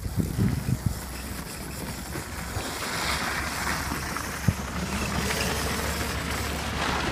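Modified Power Wheels electric ride-on car, running a 1000 W motor, driving over dirt and dry mulch with a steady low rumble from motor and tyres. Wind rumbles on the microphone, and there is one sharp click about four and a half seconds in.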